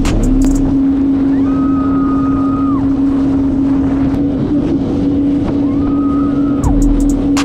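Yamaha WaveRunner jet ski's four-stroke engine running at a steady cruise with wind on the microphone. A higher whine rises, holds and drops away twice.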